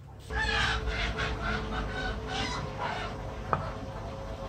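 Repeated animal calls in the background, short and pitched. A single sharp knock of motor housing parts being handled, the loudest sound, comes about three and a half seconds in.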